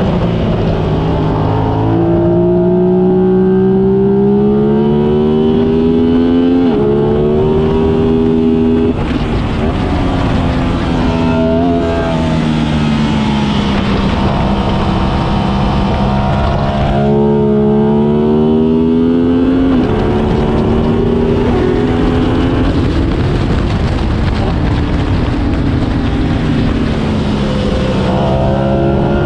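Sport motorcycle engine at track pace, heard from an onboard camera: the pitch climbs under acceleration, steps abruptly at gear changes, and drops away under braking into corners. Wind rush runs over it throughout.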